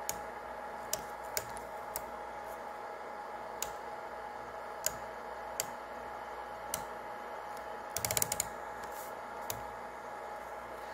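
Scattered sharp clicks of the buttons and knob being worked on a Garmin GNS 430W GPS navigator, with a quick run of clicks about eight seconds in, over a steady electrical hum.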